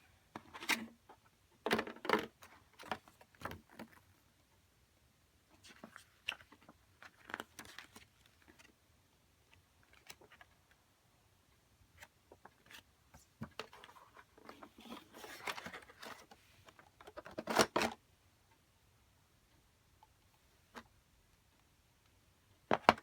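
Packaging being handled and opened: irregular rustling, crinkling and tearing, with sharp clicks of plastic parts, in short clusters separated by quiet gaps.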